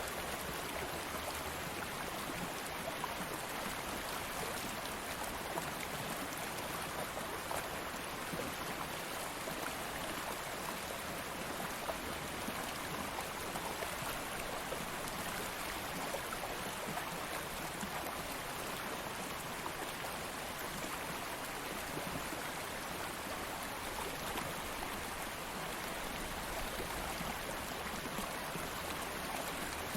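Stream water flowing steadily over rocks, a continuous even rush and babble.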